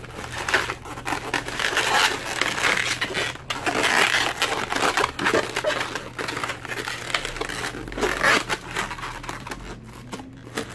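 Inflated black 260Q latex modelling balloons being twisted and pressed together by hand, rubbing and squeaking against each other in irregular bursts with the odd sharp click.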